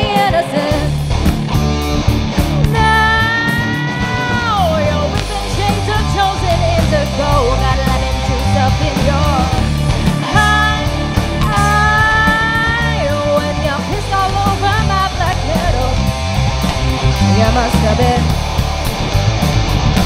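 A live rock band: a woman singing lead over electric guitar, bass guitar and a drum kit. Twice she holds a long note that falls in pitch at its end.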